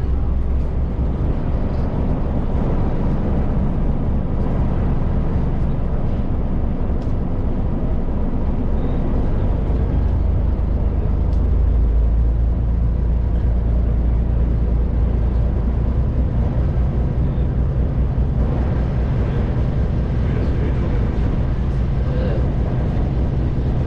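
Passenger ferry's diesel engine running steadily under way: a constant low drone with wind and water noise over it.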